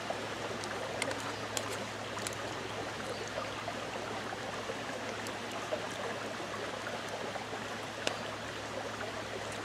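A creek running steadily, with a few faint clicks of a spoon against the plate.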